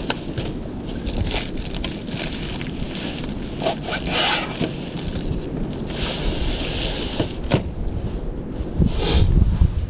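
Blizzard wind buffeting the microphone in a steady low rumble, with a few brief higher hissing bursts along the way.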